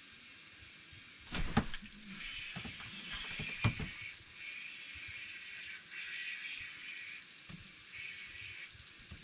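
Fishing reel being cranked to bring in a hooked fish: a fast whirring, clicking run of the reel's gears with a few short pauses, starting about a second in with a couple of knocks.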